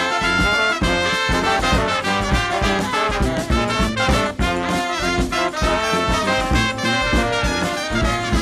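Horn-driven funk music with trumpets and trombones over a steady, driving beat.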